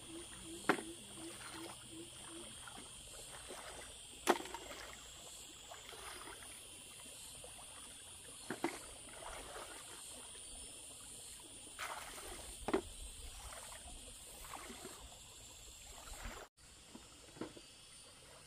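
Water splashing and sloshing in uneven bursts, with a few sharp knocks, over a steady high-pitched hiss.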